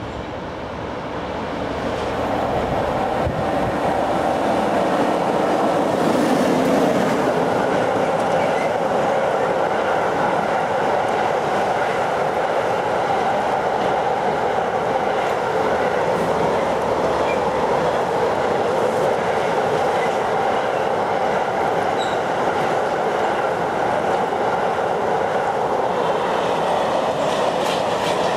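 Class 92 electric locomotive passing at speed, followed by a long train of empty cartic car-carrier wagons rolling by. The noise builds over the first few seconds as the locomotive arrives, then stays steady and loud as the wagons pass.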